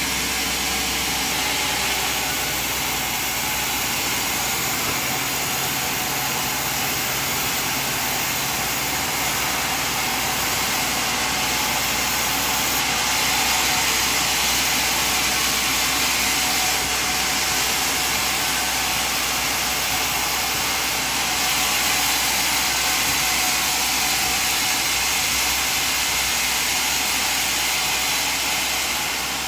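Sawmill machinery running with a steady, hissing mechanical noise that holds level throughout.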